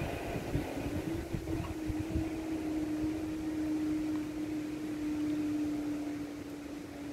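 Level crossing barrier mechanism humming steadily as the barrier booms rise after a train has passed. The hum starts about a second in and sinks slightly in pitch as the booms lift, over the last rumble of the departing train.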